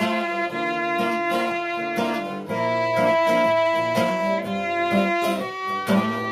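A band playing an instrumental passage of the song: a violin carries the melody with some long held notes over guitar accompaniment.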